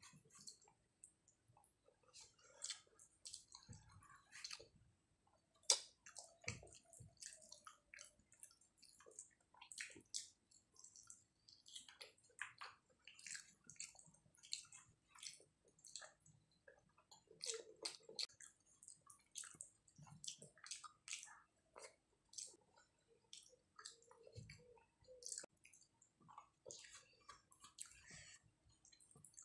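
Faint close-up chewing and mouth clicks of someone eating rice and curry by hand, with soft squishes of fingers working rice on a plate; many short, irregular clicks.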